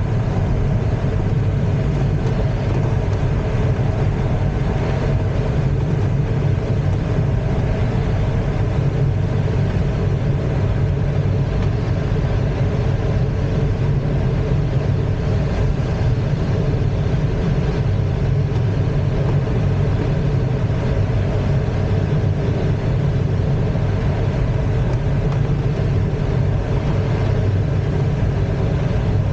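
Steady drone of the tow plane's engine mixed with the rush of airflow over the canopy, heard from inside the ASK-21 glider's cockpit during an aerotow climb.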